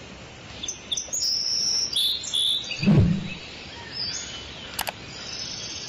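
Birds chirping over a steady rush of river water, with a deep thud about three seconds in and a couple of sharp clicks near the end.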